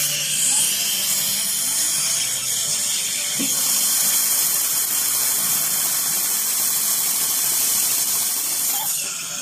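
Steady watery hiss of a dental high-volume suction tip drawing irrigation water and blood from the mouth, easing near the end.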